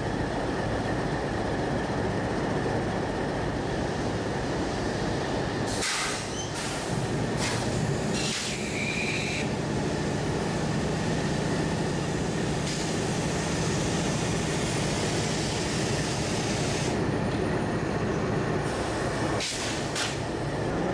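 Diesel locomotive engines running steadily as a diesel freight train pulls slowly into the station past a standing, idling locomotive. Short high-pitched squeals and hisses come several times between about six and ten seconds in and twice again near the end.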